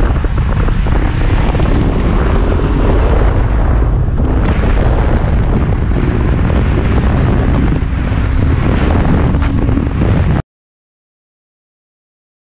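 Sport motorcycle ridden at speed, heavy wind buffeting on the helmet-camera microphone with the engine note faintly rising and falling beneath it. The sound cuts off abruptly near the end into dead silence.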